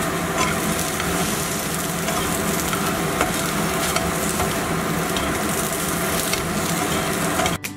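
Halved cherry tomatoes sizzling in olive oil in a non-stick frying pan while a spatula stirs them, with light scraping clicks of the spatula against the pan. The sizzle stops abruptly near the end.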